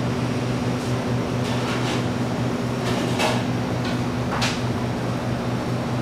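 Steady low hum of a room's air conditioning and ventilation, with two brief sharp noises about three and four and a half seconds in.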